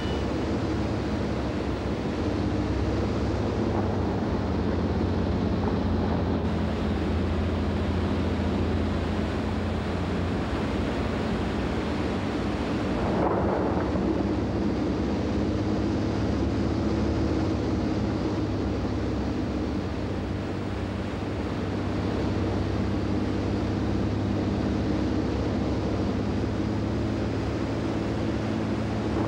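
Glacier-burst (jökulhlaup) floodwater rushing through a rocky gorge: a steady roar of white water, with a steady low hum underneath and a brief swell about halfway through.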